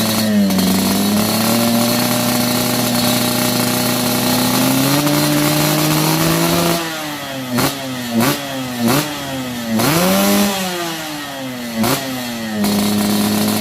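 Yamaha RX-King two-stroke motorcycle engine held at a steady raised speed, then blipped sharply several times in quick succession, with one longer rev, before settling back to a steady run near the end.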